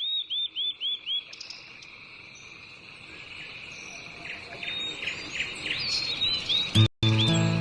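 Small bird chirping in quick runs of short high notes over a steady high-pitched insect drone; music comes back near the end.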